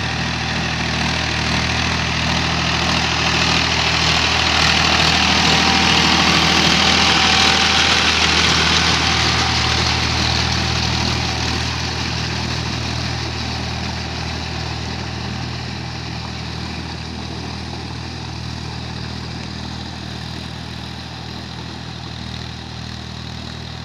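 Mahindra 275 DI tractor's three-cylinder diesel engine running steadily as it puddles a flooded paddy field, with the churn of mud and water under the wheels and implement. It grows louder as the tractor passes close, about seven or eight seconds in, then fades as it moves off across the field.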